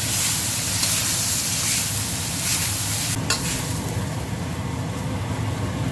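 Shrimp and asparagus sizzling in a stainless steel wok as a metal spatula stirs and scrapes them. A sharp knock comes about three seconds in, and the sizzle is a little quieter after it.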